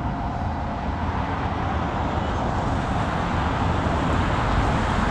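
Steady road traffic noise, growing louder over the second half as a vehicle goes by.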